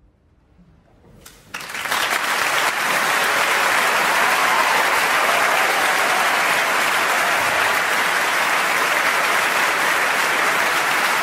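Near silence, then about a second and a half in a concert audience breaks into applause, which goes on steadily.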